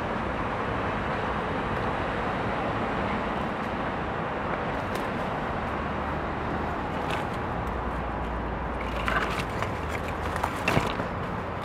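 Steady background hum of the surrounding city, with a few footstep crunches and knocks on debris about nine to eleven seconds in.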